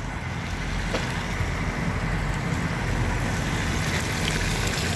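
Pork chops sizzling in butter in a frying pan on a portable propane stove, a steady hiss that grows a little louder, over a low steady rumble of traffic.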